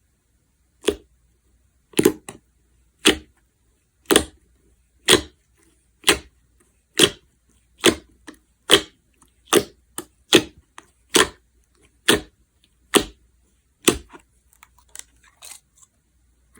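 Jiggly slime squished by hand in a steady rhythm: about fifteen short sounds, one roughly every second and coming slightly faster later on, followed by a few small faint crackles near the end.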